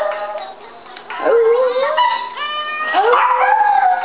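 Small Yorkshire terrier howling with its muzzle raised: drawn-out, wavering howls that rise and bend in pitch, one starting just over a second in and another about three seconds in.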